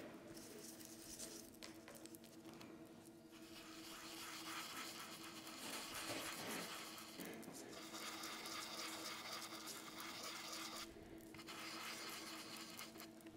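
A dry brush scrubbing paint onto a craft cut-out in quick back-and-forth strokes, faint and scratchy, with short pauses about three seconds and eleven seconds in.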